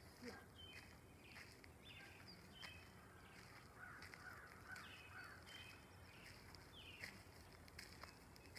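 Faint birdsong at dusk: many short chirps and quick falling calls from several birds.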